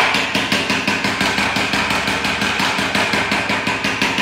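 A rigid plastic chocolate mould filled with white chocolate being rapped quickly and steadily against a stone countertop, about six or seven knocks a second, stopping near the end. This is the usual way to settle the chocolate in the cavities and shake out air bubbles.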